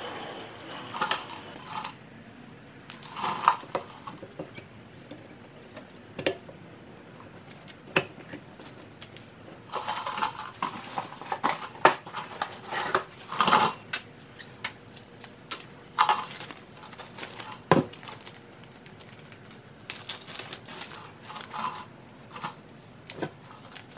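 Irregular metallic clinks and clicks of hand work on a car's front brake assembly: metal brake parts and hand tools knocking together at the wheel hub and new rotor.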